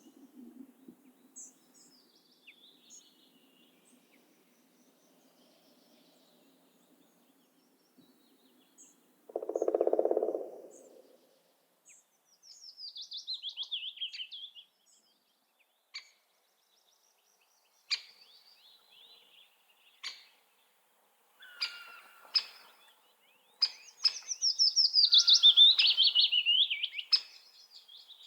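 Songbirds singing: scattered short chirps and a fast trilling song that falls in pitch, heard twice, the second time louder near the end. A short low-pitched sound stands out about ten seconds in.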